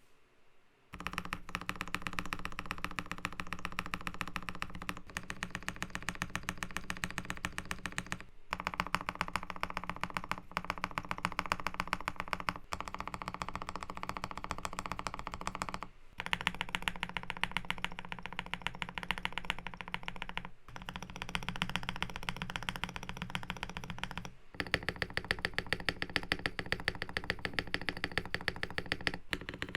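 Fast, steady typing on a GMK67 custom mechanical keyboard with lubed JWK Black linear switches, a polycarbonate plate and a tape mod. The typing starts about a second in, with brief breaks every few seconds.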